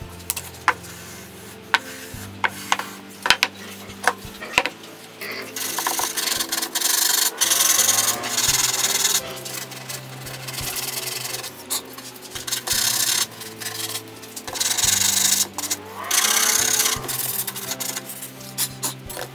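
Sandpaper on a hand sanding block rasping back and forth along the edges of a routed recess in a wooden table top, in spurts of strokes with short pauses, from about five seconds in. Before that, a few sharp clicks and taps.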